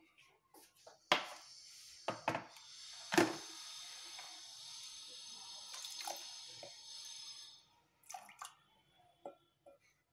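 Water poured from a glass into a glass bowl of semolina: a steady trickle lasting several seconds, with a few sharp knocks near the start.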